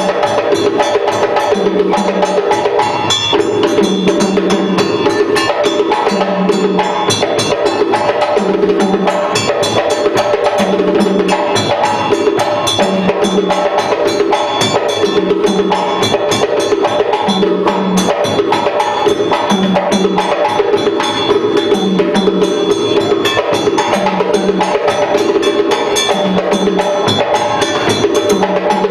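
Drum ensemble playing a fast, dense dance rhythm, with a low drum note coming back about every second or so.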